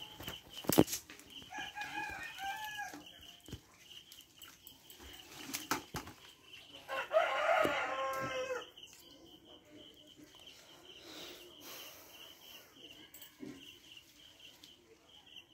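A rooster crowing once, a long call about seven seconds in, preceded by shorter chicken calls around two seconds in.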